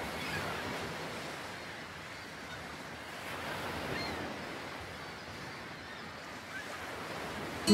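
Ocean surf: a steady wash of waves breaking, swelling a little about four seconds in.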